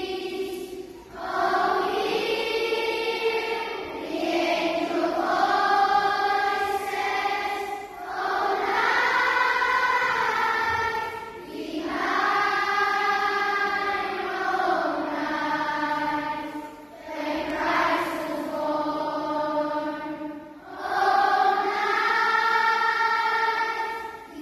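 Choral music: a choir singing slow, held notes in phrases of a few seconds each, with short breaks between them.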